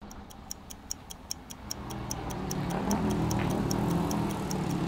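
Fast, even clock-like ticking, about five ticks a second. Under it, the low running of a bus engine comes in about two seconds in and grows louder.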